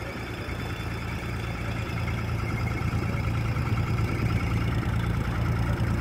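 Small river boat's motor running with a steady low hum, growing louder over the few seconds.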